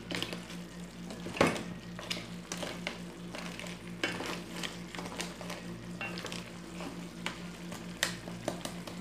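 Crab roast masala sizzling in a pan while it is stirred with a spoon, with irregular scrapes and taps against the pan and a steady low hum underneath.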